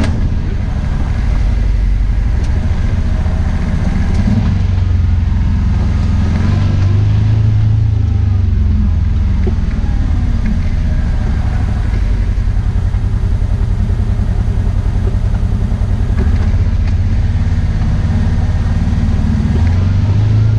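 Kawasaki Teryx 4 side-by-side's V-twin engine running steadily as the machine drives along a dirt trail, heard from inside the cab. The engine note swells a little about seven seconds in and again near the end.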